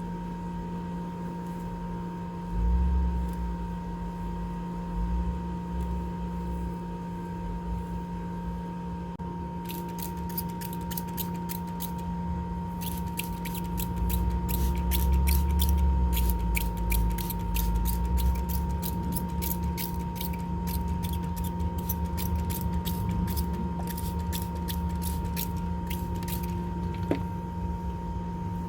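Matted hair being worked apart during detangling: rapid, irregular crisp crackles and snaps that begin about ten seconds in, with low rumbles of handling close to the microphone. A steady hum runs underneath.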